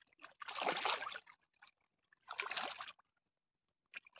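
Water splashing in a pond twice, each splash lasting under a second, with a short quiet gap between them.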